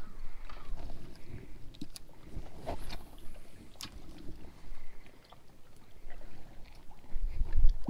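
Low rumble of wind and water around a small fishing boat, broken by a few sharp clicks, with a louder burst of rumble near the end.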